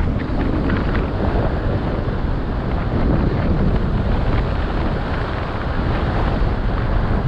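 Heavy, steady wind buffeting the microphone of a rider on a moving e-bike, a dense low rumble without any clear tone.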